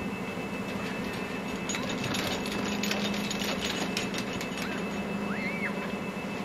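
A steady low mechanical hum with a hiss over it, a spell of faint clicks and scratches a couple of seconds in, and a short rising-and-falling whistle-like tone near the end.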